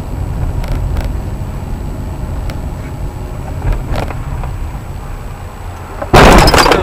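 Steady low rumble of road and engine noise inside a moving car. Near the end comes a sudden, very loud crash as the car collides and the dashboard camera is jolted.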